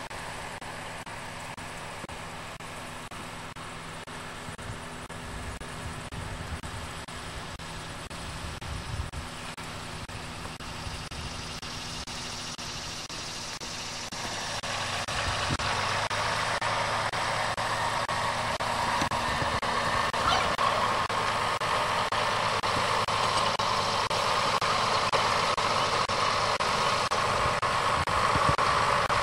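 Farm tractor engine running steadily, growing louder about halfway through.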